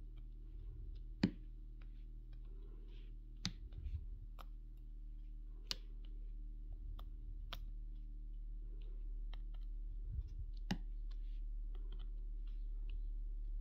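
Diamond-painting drill pen tapping square resin drills onto the sticky canvas: sharp clicks at an irregular pace, roughly one a second. A steady low hum runs underneath.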